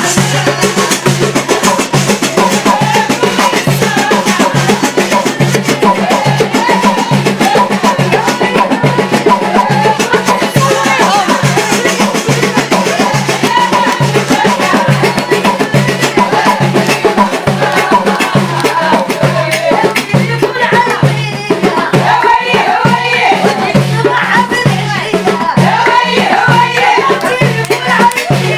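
A woman singing an Algerian aouniyat folk song over a steady, regular drum and percussion beat.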